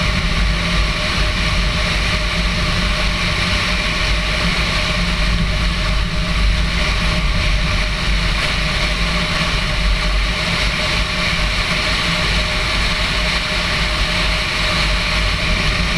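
Steady, loud rush of wind and road noise from a moving car, with the engine's low rumble underneath.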